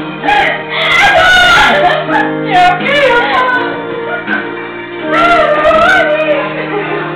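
Amateur karaoke: women singing loudly into microphones over a music backing track, the voices wavering in pitch above the steady tones of the accompaniment.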